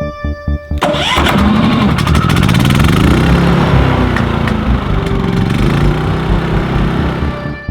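Champion 3400-watt inverter generator's single-cylinder engine starting about a second in and running, its speed sliding up and down, then cut off abruptly near the end.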